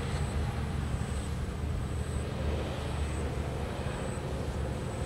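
Steady low outdoor rumble with a faint, high, thin tone pulsing on and off over and over above it.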